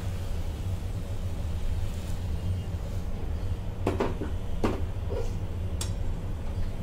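A metal spatula stirs grated bottle gourd in milk in an aluminium kadhai, knocking and scraping against the pan a few times about four to six seconds in, over a steady low hum.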